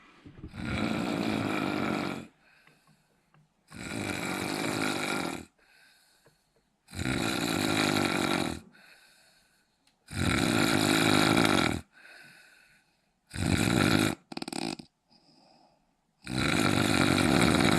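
A man snoring loudly in deep sleep: six long snores, one about every three seconds, each lasting a second and a half to two seconds, with quieter breaths between them. The fifth snore, about two-thirds of the way through, is shorter and broken in two.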